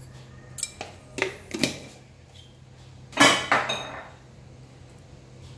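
A spoon clinking and scraping against a bowl while seasoning is stirred into a sauce: a few short clinks in the first two seconds, then a longer, louder scrape a little past three seconds in.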